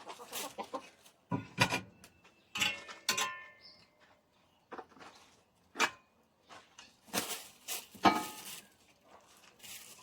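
Hens clucking in short calls, mixed with scattered knocks and rustles; the loudest is a sharp knock a little after eight seconds in.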